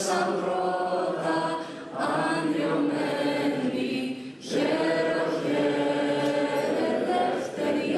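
A national anthem sung by a group of voices in long, held notes, with a short breath about four seconds in.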